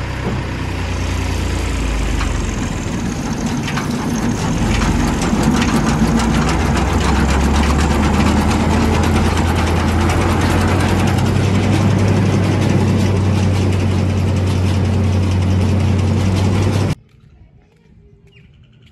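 Diesel tractor engine picking up speed over the first few seconds, then running hard and steady with a dense mechanical clatter. The sound cuts off abruptly near the end.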